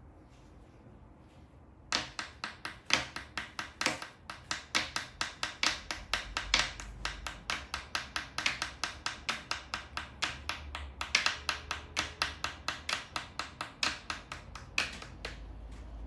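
A rapid run of sharp taps, about four or five a second and uneven in strength, starting about two seconds in and stopping near the end.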